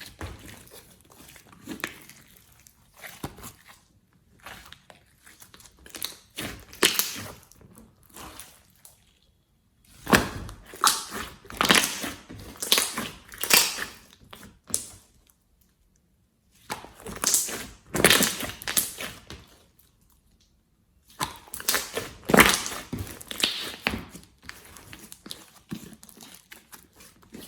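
Hands squeezing and pressing slime, making crackly, squishy noises in bouts of a few seconds with short pauses between.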